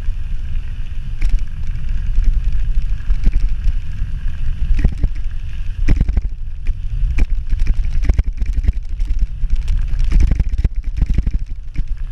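Wind rushing over the microphone of a camera on a mountain bike ridden fast, with rapid clicks and rattles as the bike jolts over the rough road.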